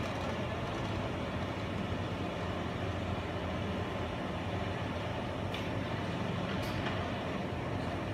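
Heavy diesel engines running steadily at low revs, with a couple of short hisses from compressed air about five and a half and six and a half seconds in.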